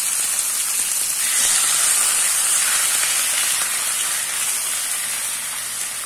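Thin beef steaks with garlic frying in hot oil in a frying pan: a steady sizzling hiss that eases a little toward the end.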